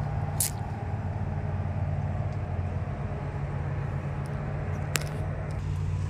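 An engine or motor running steadily with a low hum, with two sharp clicks, one about half a second in and one near the end.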